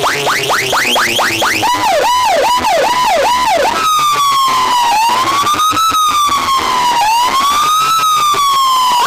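Electronic siren sound effect played loud through a DJ sound system. Fast rising whoops, about four a second, give way about two seconds in to quicker dipping swoops, about two a second. About four seconds in these become a slow wail that rises and falls.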